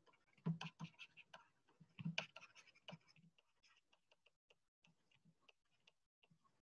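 Faint, irregular ticks and scratches of a stylus writing on a pen tablet, with two louder soft knocks about half a second and two seconds in.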